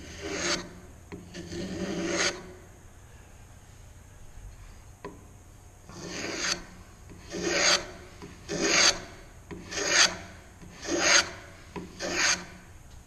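Block plane shaving the edge of a wooden board held in a vise, cutting a 45-degree bevel with slow forward passes. Two strokes, a pause of about three seconds, then six more strokes about one a second.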